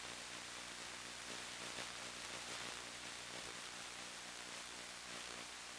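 Steady static hiss with a faint low hum underneath, unchanging throughout: the noise floor of the analog FPV video downlink's audio as recorded on the ground DVR.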